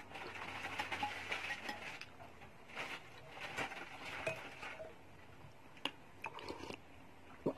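Close-up eating sounds from a bowl of meatball soup: chewing, then a spoon and fork scraping and clinking against the bowl as the meatballs are cut, with a few sharp clinks in the second half and the loudest one near the end.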